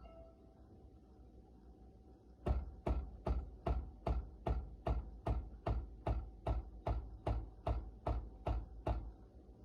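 Philips 5400 series LatteGo fully automatic espresso machine running with a regular knocking pulse, about two and a half beats a second, starting a couple of seconds in and stopping near the end.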